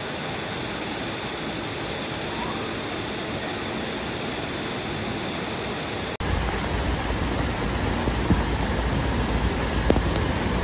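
Heavy water pouring from a station ceiling onto stairs and a flooded platform, a steady rushing splash. About six seconds in it changes abruptly to a heavier, deeper rush of downpour on a flooded road with cars driving through the water, with a few faint knocks.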